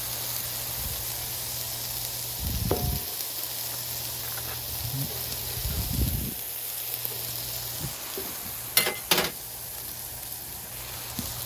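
Burger patties and melting butter sizzling on a Blackstone flat-top griddle, a steady hiss. A few low thumps come through, and two sharp clicks sound close together near the end.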